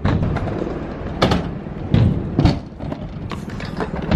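Stunt scooter's polyurethane wheels rolling over concrete with a steady low rumble, broken by several sharp knocks and thuds of the scooter hitting the ramp, the loudest between about one and two and a half seconds in.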